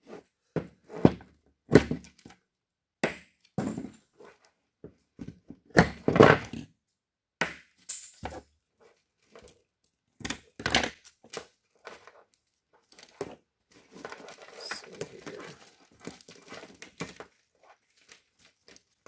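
A Toyota AW11 MR2 chassis wiring harness being cut and pulled apart by hand: irregular sharp snips and clicks of cutters going through wires, with rustling and crinkling of the wires and wrapping as they are peeled back. The rustling is busiest near the end.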